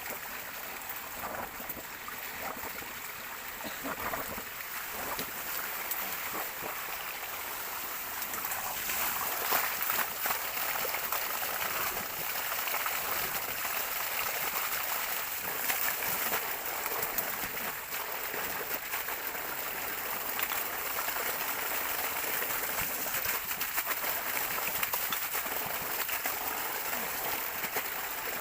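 Water running steadily, a continuous rushing and trickling that gets a little louder about eight seconds in.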